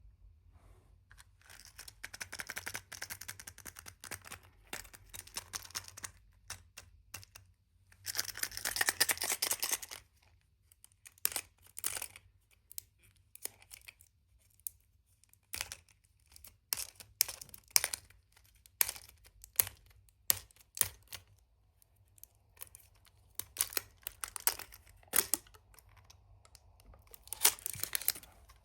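Wrapper of a surprise egg being torn and crinkled open in two stretches, the second louder, followed by many separate sharp clicks and taps as the egg and its contents are handled.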